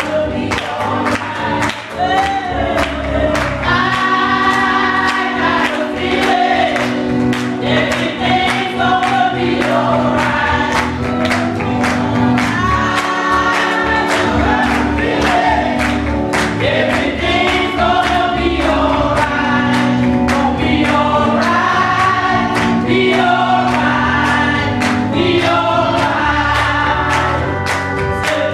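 A small group singing gospel in harmony through microphones, holding long notes over a low bass accompaniment with a steady beat.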